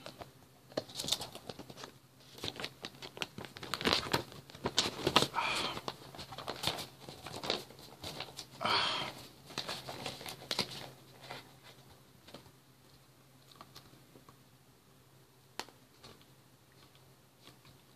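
A plastic DVD case and its paper cover sleeve being handled, with irregular rustling and plastic clicks for about ten seconds, then a few scattered clicks.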